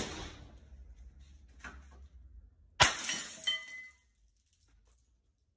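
A large sheet of glass lying flat on a concrete floor shatters about three seconds in: one sharp crack and crash, then about a second of shards clinking and ringing.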